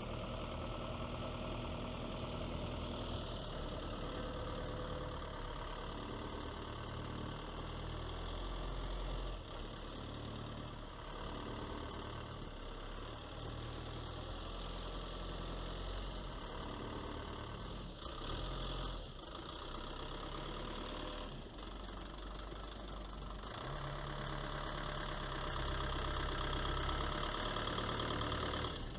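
The 2.4-litre 4D24T turbodiesel of a tracked or wheeled all-terrain vehicle running under varying load as the vehicle works over slopes and dips, its note shifting throughout. It grows somewhat louder in the last few seconds.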